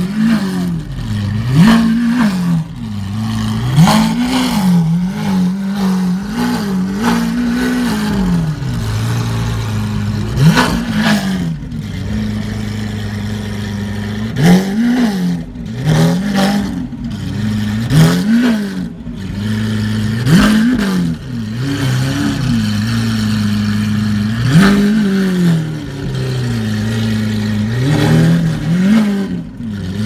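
Lamborghini Aventador SVJ's naturally aspirated V12 with an aftermarket Ryft exhaust, idling and revved again and again in short throttle blips. There are a dozen or so revs, each rising and falling quickly back to idle, loud throughout.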